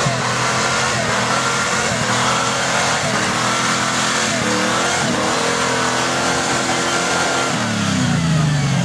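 Jeep Grand Cherokee ZJ's engine revving hard under load on a steep dirt hill climb, its pitch rising and falling as the throttle is worked, over the noise of tyres spinning and throwing dirt. The revs drop lower near the end.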